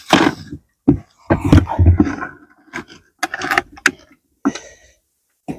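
A bait bucket and scoop being handled: an irregular run of scrapes, knocks and rattles, with a few sharp clicks.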